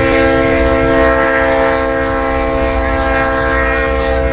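Chepe passenger train's locomotive horn sounding one long blast of several notes at once, over the low rumble of the train running.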